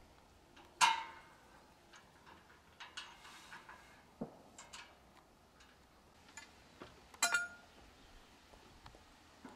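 Steel gym-frame parts and tools clinking and knocking together while being handled during assembly. A sharp metallic clank comes about a second in, lighter ticks and clicks are scattered through, and a ringing metal clank comes about seven seconds in.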